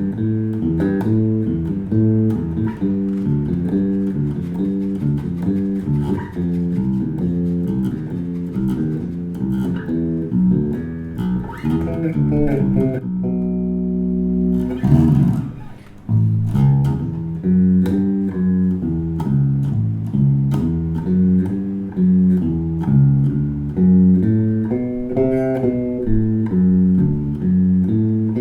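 Washburn XB-400 electric bass guitar played, a steady run of plucked notes. About halfway through, one note is held and rings for a couple of seconds, bends in pitch, and then the note run resumes.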